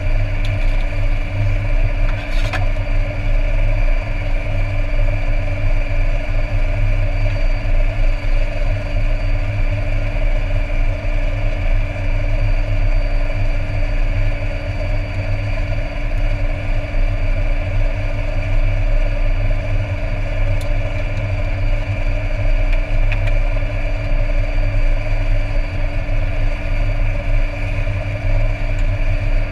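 Air Tractor 402B's turboprop engine idling steadily, heard from inside the cockpit: a low propeller drone under a thin, steady high turbine whine.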